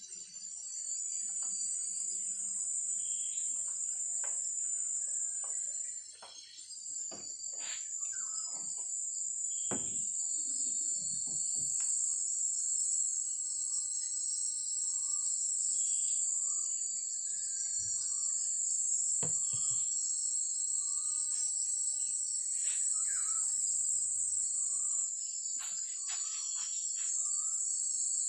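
A steady, high-pitched chorus of insects buzzing throughout, the loudest thing heard, with scattered clicks and knocks and a few short chirps over it.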